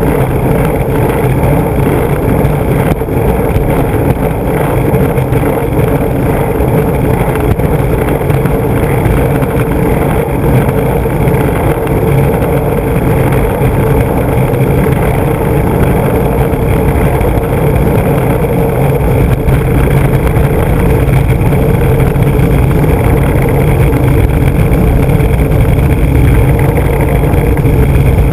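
Skateboard's large urethane wheels rolling over rough asphalt, a loud steady rumble picked up by a camera mounted on the board, growing a little louder near the end.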